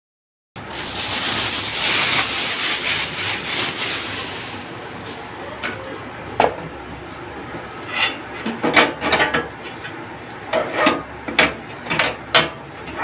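A portable butane stove and its carrying case being handled: a steady scraping noise for the first few seconds, then a string of light clicks and knocks as the stove is shifted and its metal pot-support grate is fitted over the burner.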